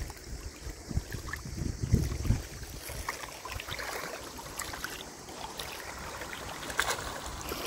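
Small waves lapping on a pebble shore with scattered light ticks of stones. Wind buffets the microphone with low gusts in the first couple of seconds, then eases.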